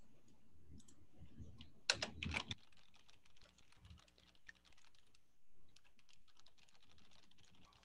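Typing on a computer keyboard: a fast, irregular run of faint keystrokes, with a louder flurry about two seconds in.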